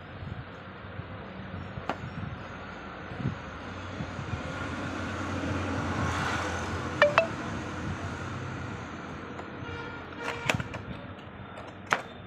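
Handling of a cardboard toy box with a clear plastic window: a few sharp taps and clicks from fingers on the packaging, and a short ringing clink about seven seconds in, over a steady background noise that swells and fades in the middle.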